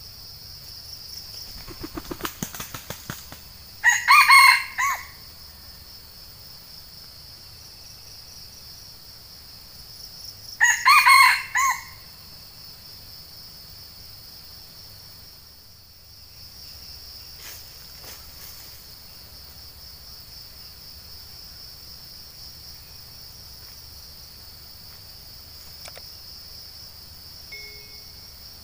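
Red junglefowl rooster crowing twice, each crow about a second long, the two some six seconds apart. A quick run of flapping beats comes just before the first crow. A steady high insect drone runs underneath.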